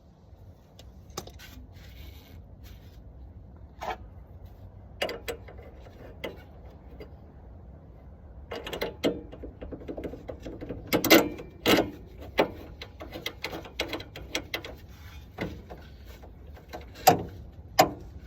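Clicks and knocks from jacking up a Eunos Roadster, few at first, thicker about nine to twelve seconds in, with two sharp knocks near the end. Among them is a 'kon, kon' knock from the suspension, the abnormal noise being checked.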